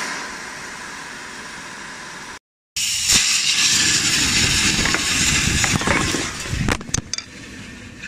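Pressurised gas blasting out of an air conditioner's open refrigerant line while the system is flushed: a loud, steady hiss that starts abruptly, spraying out oil and dirt. It cuts out briefly about two and a half seconds in, comes back louder with a low rumble beneath it, and dies down near the end after a few sharp clicks.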